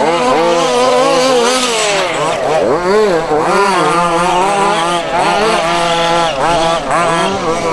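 Several 1:5 scale RC buggies' small two-stroke petrol engines racing together, their overlapping pitches rising and falling as they rev and back off.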